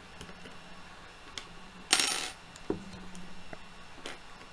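Small metal gun parts set down on a workbench: a short, loud clatter about two seconds in, then a sharp click and a few faint ticks of parts being handled.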